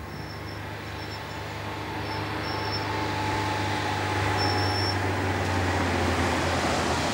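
A small police car's engine and tyres on the road as it approaches, a steady low engine hum and tyre rush growing louder.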